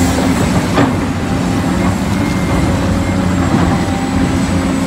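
Large Caterpillar 365C hydraulic excavator with its diesel engine running steadily at a dig site, a continuous heavy-machinery drone. There is a brief knock about a second in.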